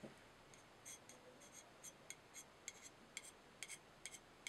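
Faint, crisp snicks of a Sebenza 21 folding knife's S35VN blade cutting into rope fibres, a quick run of short strokes about three or four a second, starting about a second in.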